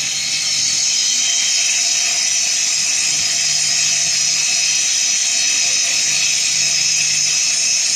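Woodworking CNC lathe running: a steady high-pitched whine and hiss with a low hum underneath, holding even throughout.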